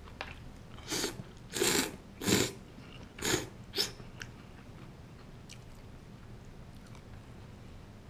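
A person slurping ramen noodles from a bowl: five short, noisy slurps between about one and four seconds in.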